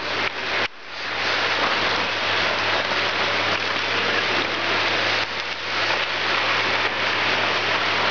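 Ice-hockey skate blades scraping and carving on the ice, a steady hiss with a brief drop less than a second in. A low steady hum runs underneath.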